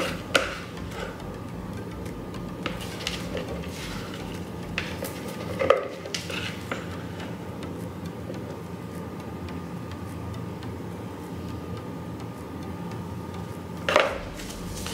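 Silicone spatula scraping and tapping against a mixing bowl while thick soap batter is poured out into a loaf mold, over a steady low room hum. A few light knocks come through, the loudest near the end as the bowl is set down on the wooden table.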